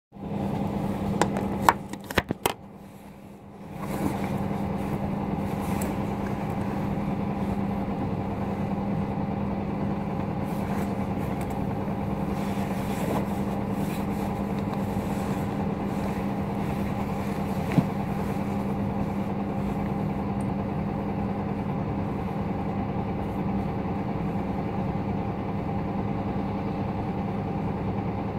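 City bus engine idling, heard from inside the passenger cabin: a steady hum. A few sharp clicks sound near the start, and the level dips briefly about three seconds in before the hum settles again.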